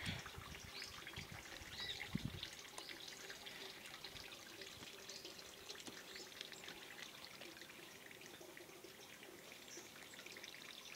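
Faint outdoor ambience of birds calling in short, high, rising chirps that recur every second or so, with soft low thumps about two seconds in.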